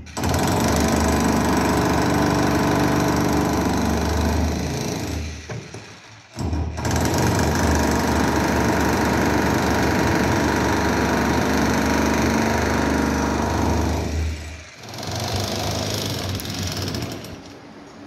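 Handheld demolition hammer breaking up a brick and concrete roof slab with a rapid, continuous hammering. It runs in two long bursts with a short break about six seconds in, then goes quieter for the last few seconds.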